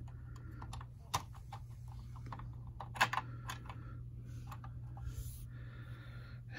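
Light clicks and taps of hard plastic as a small G.I. Joe action figure is fitted into a seat on a Cobra STUN toy vehicle, the sharpest about a second in and again about three seconds in. A faint steady low hum runs underneath.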